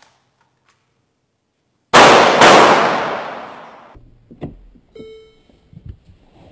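Two sudden loud bangs about half a second apart, ringing out and dying away over a couple of seconds in a large hard-walled room. A click and a short electronic tone follow.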